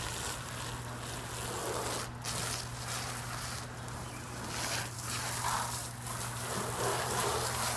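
Water from an open garden hose splashing onto a car's front bumper and headlight, rinsing off toothpaste polish: an uneven hiss that swells and dips as the stream moves across the car.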